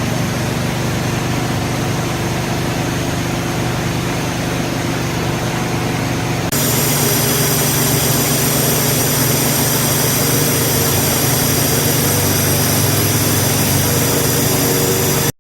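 Electric orbital sander running steadily against the layered old paint on a vintage trailer's aluminum skin, with a gas generator's engine running underneath. About six and a half seconds in the sound changes abruptly, louder with a higher whine, and it stops suddenly near the end.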